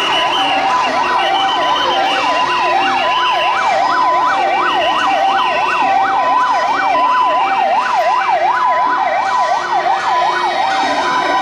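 Emergency vehicle sirens, such as an ambulance's, sounding together: a two-tone hi-lo wail switching back and forth between two pitches, and a fast yelp sweeping up and down about four times a second, both steady and loud.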